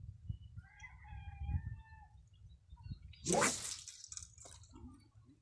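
A rooster crows once, one held call starting about half a second in. About three seconds in comes a brief, loud swish as a fishing rod is cast.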